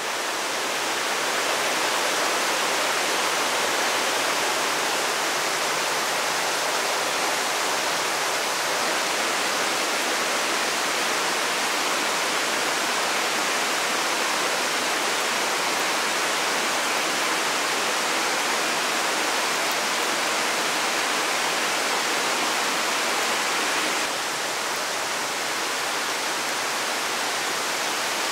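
A steady, even rushing noise like running water from a nearby stream, a little quieter from about 24 seconds in.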